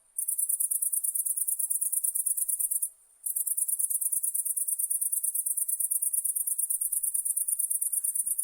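A night insect's very high-pitched, rapidly pulsed trill. It starts just after the opening, stops briefly about three seconds in, then resumes.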